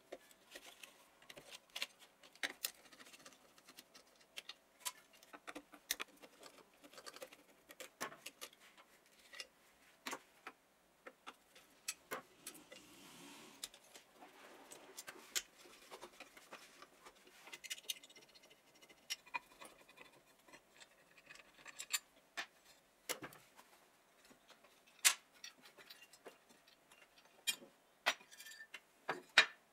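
Screwdriver and small metal parts clicking and tapping against the metal handle housing of an old cut-off saw as its screws are undone and the housing is worked apart: irregular sharp clicks with soft handling rustle between them, and a few louder knocks in the last third.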